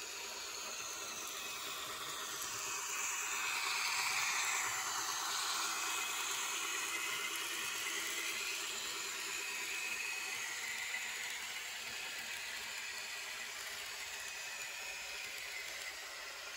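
N-scale model of the Russian M62 diesel locomotive running past, its DCC sound decoder playing diesel engine sound through a tiny speaker, mixed with the whir of the model's wheels on the track. It is loudest a few seconds in, then fades slowly as the coaches roll by.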